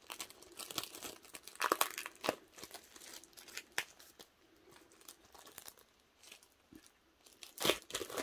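Clear plastic packaging crinkling and tearing as it is pulled off a photobook by hand: irregular rustles and crackles, with louder bursts about two seconds in and near the end.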